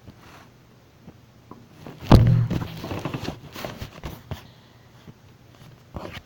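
A loud thump about two seconds in, followed by a couple of seconds of scattered knocking and rustling, as of things being handled.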